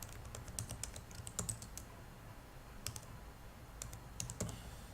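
Computer keyboard keys clicking in short irregular bursts, a quick run in the first two seconds, then a single click and a few more near the end.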